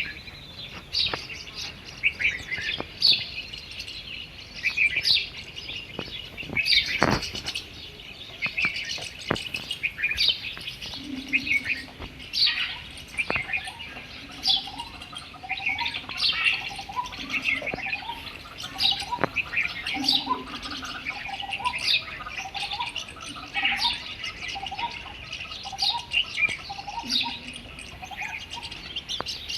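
Several garden birds chirping and singing, many short high chirps overlapping. From about eleven seconds in, a lower call of quick repeated rising notes joins them.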